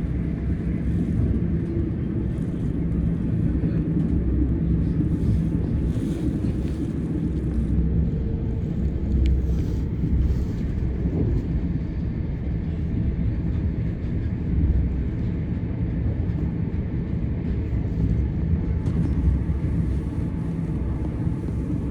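Steady low rumble of a train in motion, heard from inside the carriage, with a faint steady hum.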